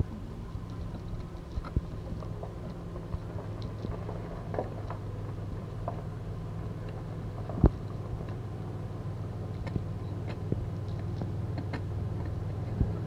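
Small clicks and taps of hands handling wires and a screw at a porch light's wall box, with one sharper click just past halfway, over a steady low hum that grows slightly louder toward the end.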